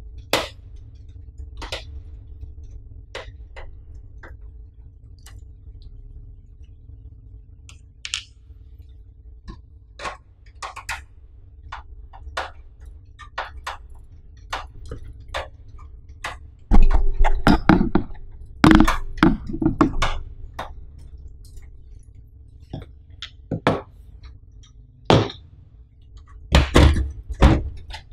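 Handling of a steel PC case: scattered small clicks and clinks of screws and a screwdriver on the metal, then a run of louder knocks and scrapes about 17 to 20 seconds in and a few loud knocks near the end as the side panel is worked and moved.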